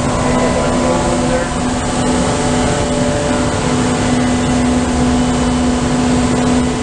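Magerle CNC surface grinder running under power: a loud, steady machine hum with one constant low tone over a broad rushing noise.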